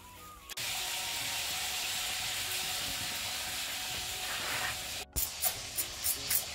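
Background music that cuts off half a second in, giving way to a steady hiss. About a second and a half before the end, after a sharp cut, come quick scraping strokes, about three a second: charred skin being scraped off a fire-roasted fish with a small stick.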